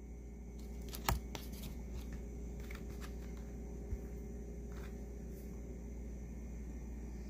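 Packages of egg bites handled and turned over by hand: a sharp tap about a second in, then light rustles and clicks, over a steady low hum.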